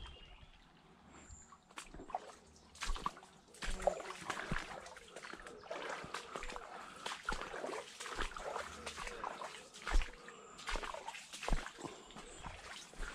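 Irregular water splashing and sloshing, a hooked salmon thrashing at the surface as it is played on the rod, with scattered knocks and a loudest thump about ten seconds in.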